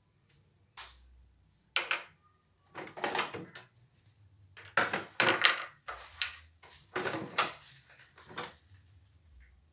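A run of short plastic knocks, clicks and scrapes as the embroidery hoop is unclipped and lifted off an embroidery machine's carriage and the embroidery unit is handled.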